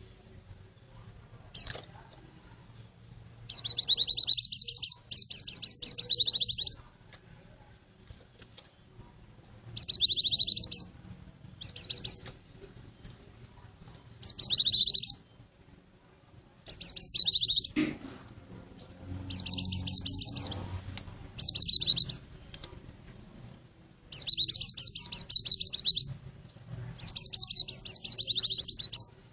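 White-eye (pleci) giving bursts of rapid, high chirping calls, about a dozen bursts each lasting a second or so, with short pauses between them. This is a lure call used to draw white-eyes in.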